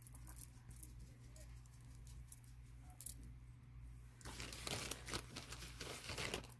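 Strands of gemstone and glass beads clicking and rustling against one another as a strand is laid down on the pile, with scattered light clicks and then a denser clatter in the last two seconds. A low steady hum runs underneath.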